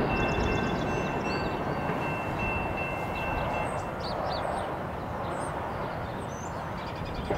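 Fading rumble of a passenger train moving away down the line, with cars driving over the tracks at the crossing. A thin steady high tone stops a little past the halfway point, and birds chirp in the second half.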